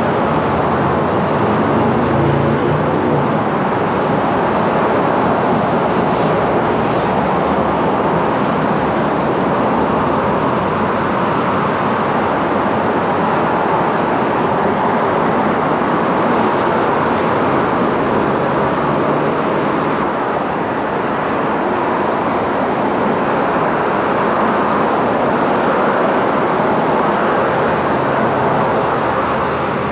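Steady road traffic noise, with a car idling close by.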